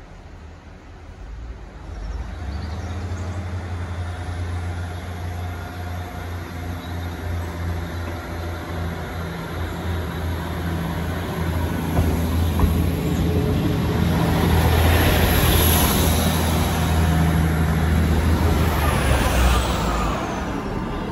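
Diesel multiple unit's engines running as the train pulls away under power and passes close by, growing louder, with a high steady whine over it. Near the end the whine falls in pitch as the train goes past.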